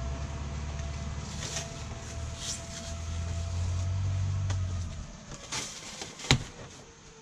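Cardboard shipping box being torn and pulled open by hand: short rustling rips, then a sharp snap about six seconds in. Under it runs a low rumble that fades about five seconds in.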